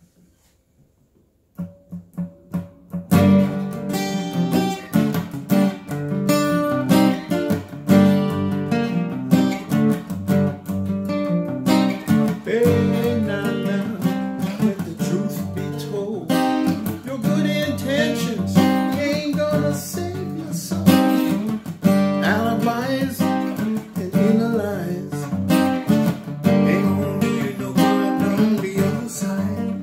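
Acoustic guitar: a few soft picked notes, then steady strumming from about three seconds in, with a man's voice singing over it from about halfway.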